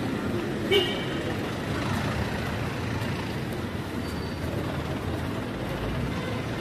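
Steady city street traffic noise, a low rumble of passing vehicles. About a second in comes a brief, sharp, high-pitched sound, the loudest moment.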